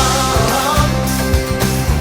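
Band music with a steady drumbeat, sustained bass notes and a wavering melody line above: a hymn arrangement.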